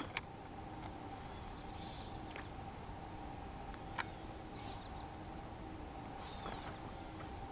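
Steady, faint high-pitched insect buzzing with a few faint bird chirps, and a single sharp click about four seconds in.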